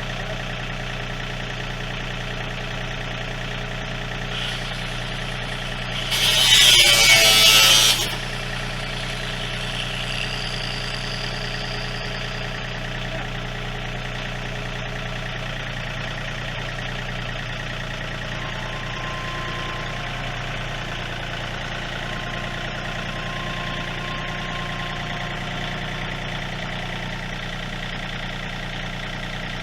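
A steady electrical hum runs throughout. About six seconds in comes one loud hissing burst that lasts about two seconds.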